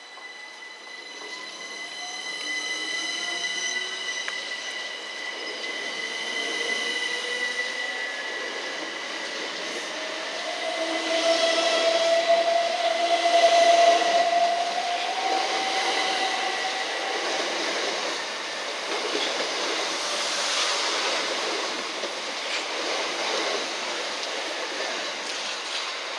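Class 377 Electrostar electric multiple unit pulling out and accelerating past. Its traction motors give a rising whine over the rumble of the wheels on the rails, and a long squeal sounds through the middle, where the passing coaches are loudest.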